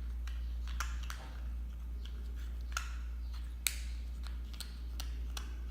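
A spoon stirring a stiff, nearly set homemade slime in a bowl, giving irregular sticky clicks and squelches, about eight in all, over a steady low hum.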